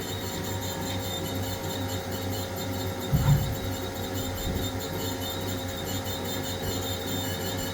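Haas SL30T CNC lathe running under power: a steady machine hum with a fixed tone, and a single low thump about three seconds in.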